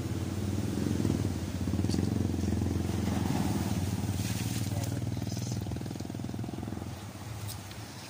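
A small engine running close by, swelling in the first second and falling away about seven seconds in, like a vehicle or motor passing.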